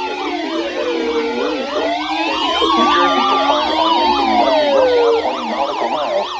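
Several emergency-vehicle sirens sounding at once: slow rising-and-falling wails at different pitches overlap with rapid yelps. The lowest wail falls away about five seconds in, leaving the yelps.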